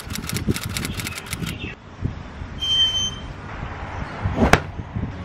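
Rapid typewriter key clicks for about a second and a half, then a brief high chirp. About four and a half seconds in, a yoga mat is swung down and slaps onto the tiled floor with a loud swish.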